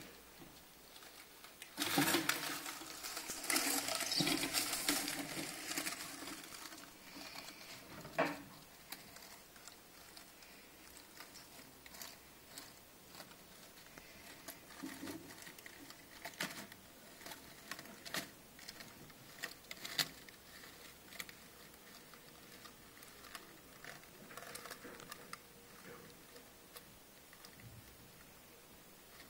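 Dry leaf litter rustling and crackling for a few seconds as a Lampropeltis snake strikes and wraps a white mouse, with a sharp click a few seconds later. Then only faint, scattered rustles and clicks while the snake holds the mouse in its coils.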